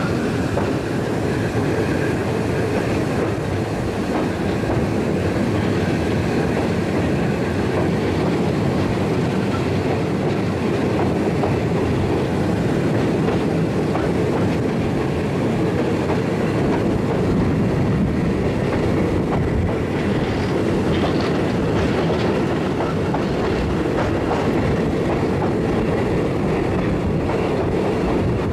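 Diesel-hauled passenger train running steadily, heard from an open carriage window: a continuous rumble of wheels rolling on the rails, led by the General Electric/Caterpillar diesel locomotive A-223.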